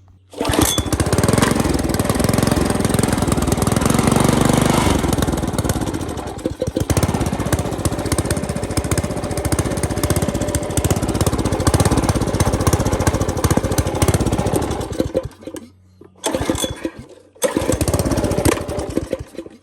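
Old garden tiller's small gasoline engine running, with a sag about a third of the way in, then stalling; it fires twice more, briefly, and dies each time. The speaker puts this down to trash in the fuel line or carburetor, probably a blocked float-bowl jet.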